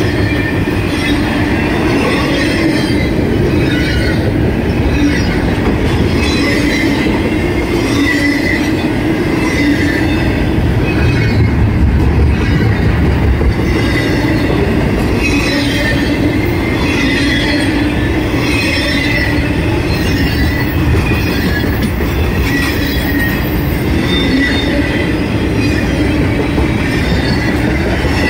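Norfolk Southern intermodal freight train rolling past, its container-laden well cars clattering steadily on the rails with recurring steel wheel squeal.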